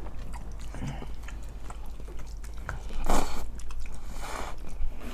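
Close-miked eating of spaghetti and salad: chewing with small wet mouth clicks, and two louder noisy bursts about three and four seconds in.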